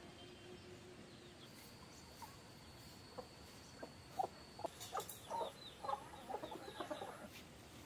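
Chickens clucking: a run of short clucks that starts about three seconds in and grows busier toward the end.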